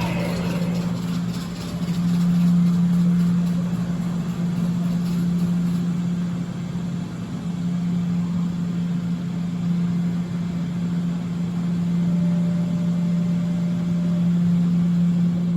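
Nilfisk Advance SC1500 REV floor scrubber running with a steady low hum over a rushing noise: the weird, bad sound its operator is recording.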